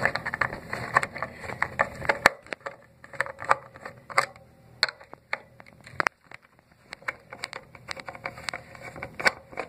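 Handling noise: irregular small clicks, taps and light scrapes of things being moved about on a countertop, with a sharper knock about two seconds in and another about six seconds in.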